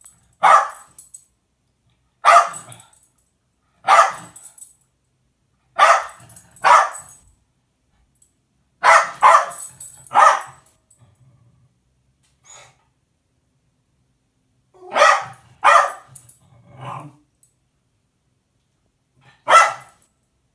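Jack Russell terrier barking: about a dozen sharp single barks a second or two apart, some in quick pairs, with a pause of about four seconds in the middle. It is alert barking, telling on the cat up on the kitchen counter.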